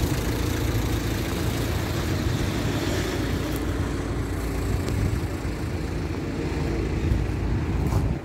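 Tractor's diesel engine idling steadily, a low, even rumble.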